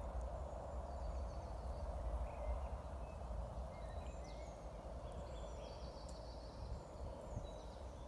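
Faint chorus of breeding toads calling from the pond, a steady grainy purring, with small birds chirping and trilling high above it and a low rumble underneath.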